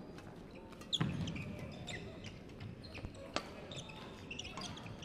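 Badminton rally: sharp racket-on-shuttlecock hits, the loudest about a second in along with a thump of feet, and another a little past three seconds, with sneakers squeaking and footfalls on the wooden court.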